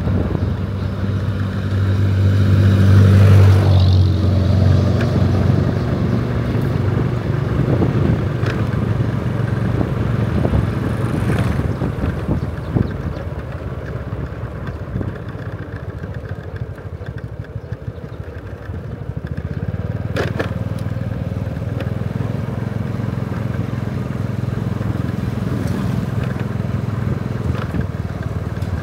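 An engine running steadily, loudest a few seconds in, easing off in the middle and picking up again about twenty seconds in.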